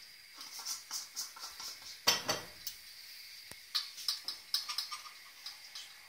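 A metal spoon clinking and scraping against a stainless-steel bowl while pieces of chocolate are stirred in a double boiler, with one louder clank about two seconds in.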